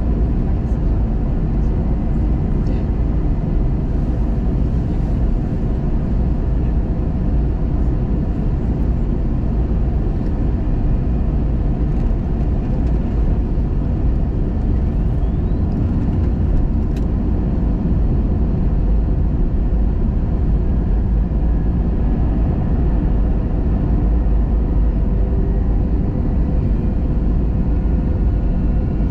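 Airliner cabin noise on approach: a steady low roar of jet engines and rushing airflow heard from inside the passenger cabin, with a faint whine on top.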